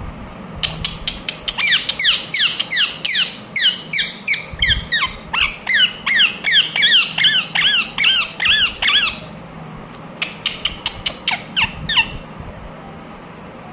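Indian ringneck parrot giving its natural screeching calls: a long, rapid run of harsh calls at about three a second, then after a short pause a quicker burst of short calls.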